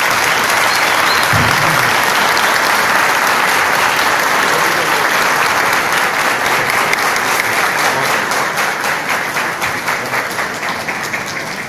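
A large theatre audience applauding, steady and sustained, tapering off near the end.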